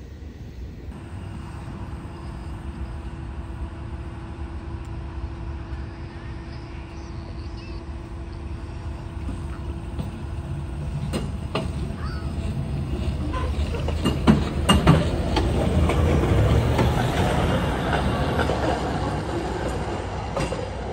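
Hi-rail pickup truck running along the railway track and passing close. A steady rumble builds, there are a few sharp clicks from the rail wheels, and the running noise is loudest about two-thirds of the way through.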